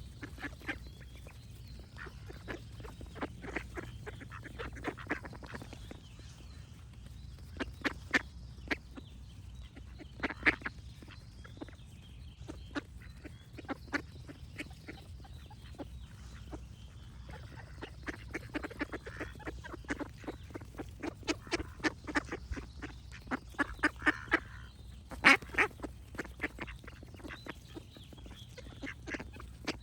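Ducks quacking in repeated runs of short, rapid quacks, the loudest run a little before the end, with faint birdsong behind them.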